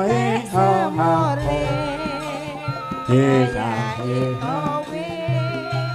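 A sinden, a Javanese female vocalist, sings an ornamented, wavering melody with vibrato through a microphone, over gamelan accompaniment with sustained low notes.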